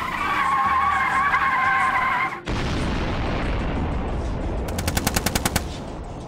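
Car tyres squealing in a spin, a wavering high screech that cuts off suddenly about two and a half seconds in. A steady rumbling noise follows, then a short burst of rapid automatic gunfire near the end: about ten shots in under a second.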